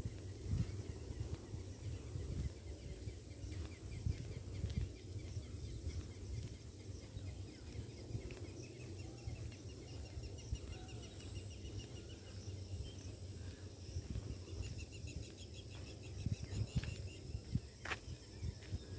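Rural outdoor ambience: birds calling in fast runs of repeated notes over a steady high insect drone, with the soft irregular thuds of a walker's footsteps on a paved road; a single sharp click near the end.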